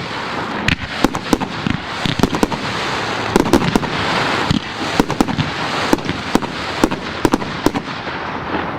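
Fireworks going off: irregular sharp bangs, several a second, over a continuous hiss, thinning slightly near the end.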